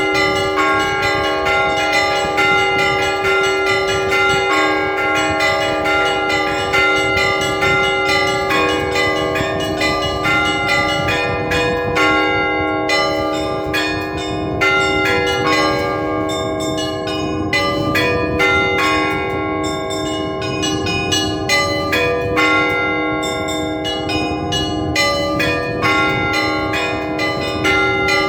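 Russian Orthodox church bells rung by a bell ringer in a continuous peal. Fast strikes on the smaller bells ring over the lasting tones of the larger bells, with no break.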